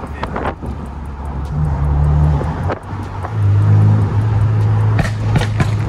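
BMW Z4 convertible's engine running under way with the top down. About three seconds in the sound breaks off briefly, then comes back lower in pitch and louder.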